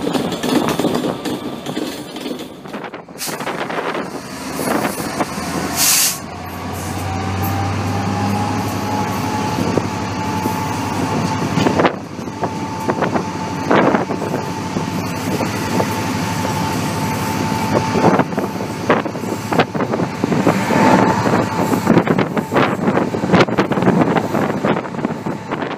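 Passenger train hauled by a Class 67 diesel-electric locomotive on the move, heard from an open coach window: steady running noise with clatter and knocks from the wheels on the track. About six seconds in, a low hum comes in and a high whine rises for a few seconds, then holds steady until near the end.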